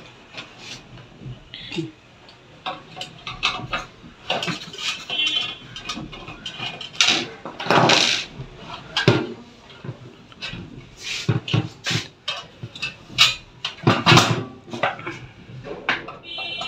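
Irregular clicks, knocks and rattles from a plastic-cased hot-roller laminating machine being handled and checked for a fault. Near the end comes the scrape of a screwdriver working at its switch panel.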